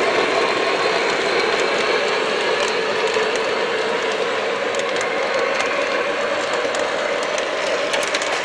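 O-scale model train cars rolling along three-rail track: a steady rolling rumble from the wheels with scattered light clicks, easing slightly toward the end.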